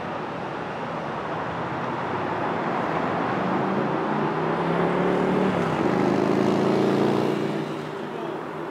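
A motor vehicle's engine passing close by, growing louder from about three seconds in, peaking around six to seven seconds and fading near the end, over a steady hum of city traffic.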